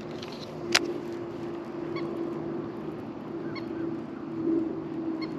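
Steady low hum of a bass boat's electric trolling motor, with one sharp click just under a second in and a few faint, short high-pitched calls spaced a second or two apart.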